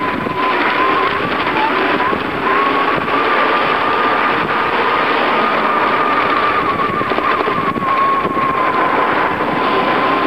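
Wind rush on the microphone and road noise from a moving bicycle, with a steady thin whine running through it whose pitch rises slightly a few seconds in and eases back down later.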